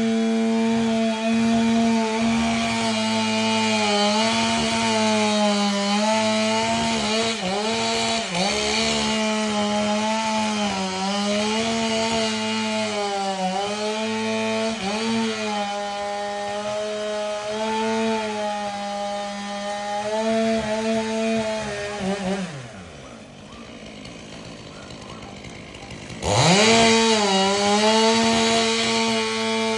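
Two-stroke chainsaw running at high revs and cutting into a canary palm. The engine note dips and recovers repeatedly as the chain bites. About two-thirds of the way through, the throttle is released and the note falls away to a low idle, then it revs back up sharply near the end.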